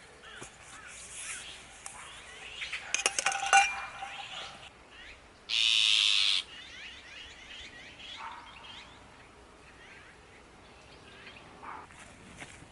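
Small birds chirping outdoors, with a quick run of metallic or glassy clinks about three seconds in. Around the middle, a loud, even hiss lasts about a second and cuts off suddenly.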